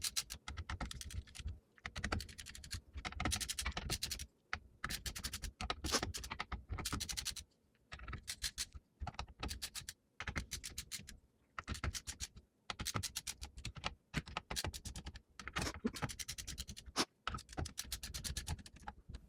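Ratcheting screwdriver clicking in bursts of rapid clicks with short pauses as screws are tightened down.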